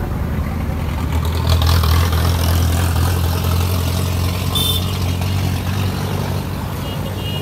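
A motor engine running steadily with a low hum, swelling a little louder for a couple of seconds near the start. A brief high chirp sounds about two-thirds of the way through.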